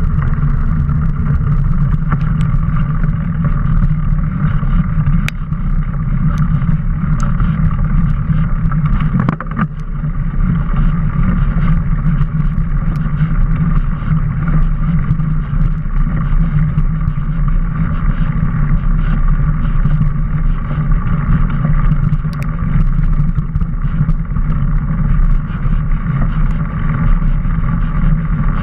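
Steady rumble and rush of a mountain bike rolling along a dirt trail, picked up by a camera mounted on the bike: wind over the microphone mixed with tyre and frame vibration, with scattered small clicks and rattles.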